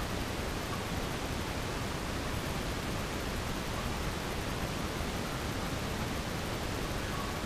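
Steady, even rushing noise of water in a cave passage as the tidal sump fills, with a few faint short plinks.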